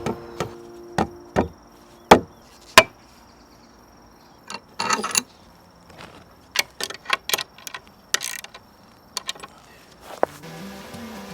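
Sharp knocks and taps on wooden boards, the loudest two about two and three seconds in, with a quick run of lighter taps later and a couple of short rasping bursts.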